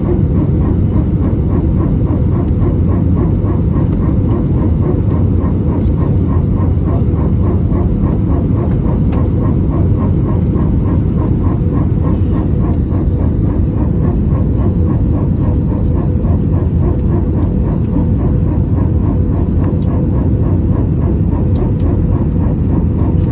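Airliner cabin noise heard from inside during landing: a loud, steady rumble with a steady hum and a regular pulsing sound, about two to three pulses a second. The pulsing is the noise in the aircraft that the passenger is filming.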